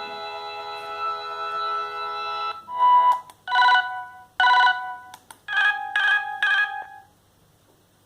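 Siemens M55 mobile phone ringtones: a held, organ-like chord ends about two and a half seconds in, then a short electronic tune of separate notes plays and stops about a second before the end.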